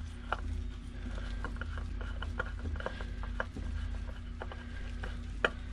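Irregular light clicks and ticks of a new spin-on oil filter being turned by gloved hand onto a Westerbeke diesel generator's filter mount, with a sharper click near the end. A steady low hum runs underneath.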